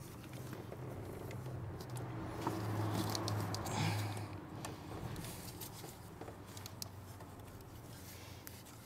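Small metal clicks and scrapes of a brake booster line fitting being handled and threaded by hand at the master cylinder, over a steady low hum that swells a few seconds in.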